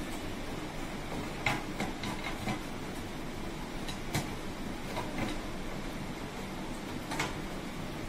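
About half a dozen short plastic clicks and knocks, irregularly spaced, over a steady hiss: hands working the drain-pump filter at the bottom front of a front-loading washing machine.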